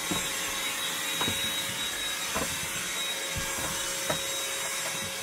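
Black & Decker Dustbuster handheld vacuum, fitted with an extension wand and floor head, running steadily with a steady motor whine. A few light knocks come about 1, 2.5 and 4 seconds in.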